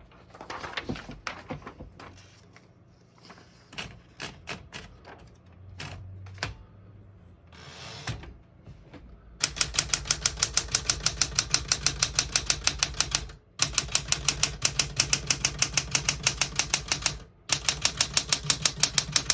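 1969 Smith-Corona Galaxie Deluxe portable typewriter: scattered clicks and handling at first, then rapid, even key strikes, about eight to ten a second, in three runs with two brief pauses.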